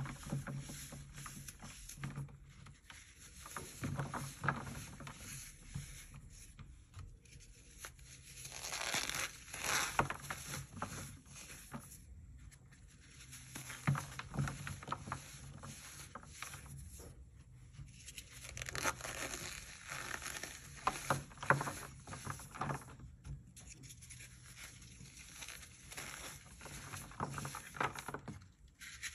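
Hands crushing and crumbling dried balls of reformed floral foam into gritty crumbs: dry crunching and crackling that swells in waves every few seconds, with quieter rubbing of crumbs between.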